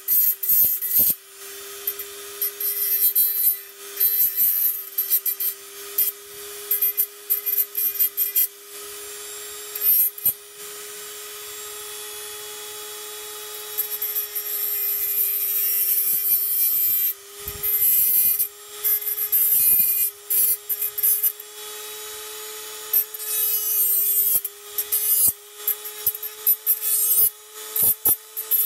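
Dremel rotary tool with a small cut-off wheel running at a steady whine while it trims around the damaged foot of a cast pewter figure. The wheel bites into the metal in many short bursts of grinding hiss, with one longer cut about halfway through.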